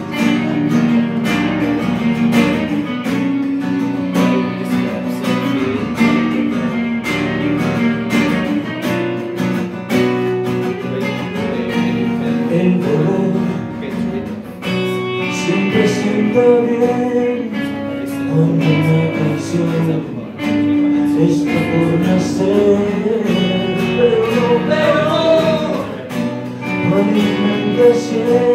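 Live song played on strummed acoustic guitar with a hollow-body electric guitar picking lead lines; a voice starts singing about halfway through.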